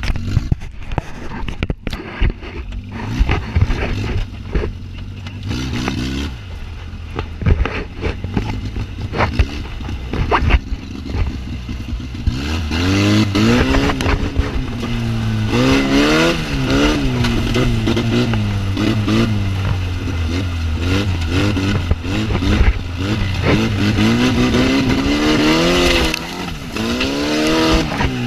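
Off-road buggy engine running with knocks and clatter for the first part, then revved hard over and over, its pitch rising and falling with each burst of throttle.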